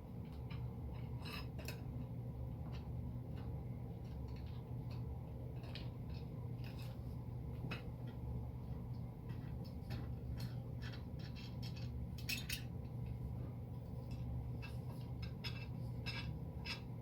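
Small metal clicks and clinks of screws, a small wrench and metal frame pieces being handled and screwed together, irregular and scattered with a denser cluster about twelve seconds in, over a steady low hum.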